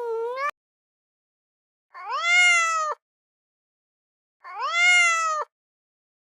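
Domestic cat meowing twice, each meow about a second long and rising then falling in pitch. A long held animal call cuts off about half a second in.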